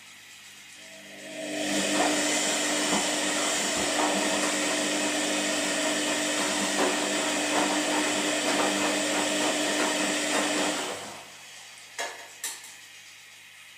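An electric appliance motor starts about a second in and runs steadily for about nine seconds with a hum and a rattle, then winds down and stops. Two sharp clicks follow near the end.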